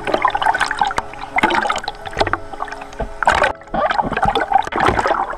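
Loud, irregular splashing and sloshing of water in repeated bursts, with a brief break about halfway through.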